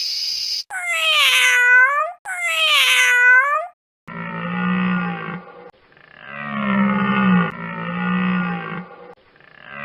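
A series of animal calls. Two pitched cries come first, each dipping and then rising again. They are followed by four longer, lower-pitched calls of about a second and a half each.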